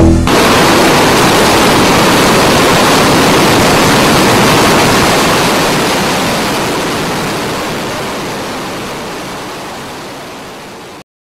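A steady, even rushing noise that starts abruptly as the music stops, holds for about four seconds, then fades slowly and cuts off suddenly near the end.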